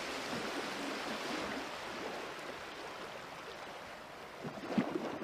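Beef stew with a thick sauce bubbling as it boils in a pan, a steady soft hiss of simmering with a few sharper pops near the end.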